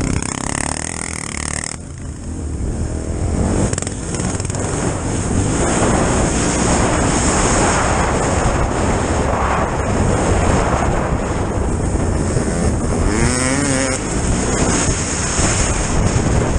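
ATV engine running under throttle, heard from on the machine over a steady rush of wind and trail noise. The revs drop away in the first couple of seconds, and the engine revs up and down quickly near the end.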